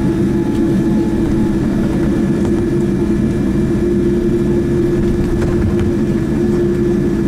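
Cabin noise of a Boeing 787-9 taxiing, heard from a seat by the wing: its General Electric GEnx engines run at low taxi power as a steady low rumble with an even hum.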